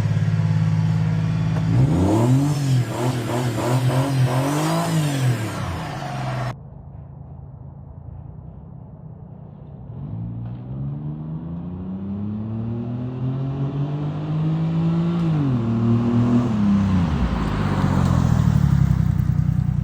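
Honda Acty engine running through a new aftermarket muffler, with a lower note: idling, then revved twice. After an abrupt cut it climbs steadily in pitch, drops back near the end and pulls up again.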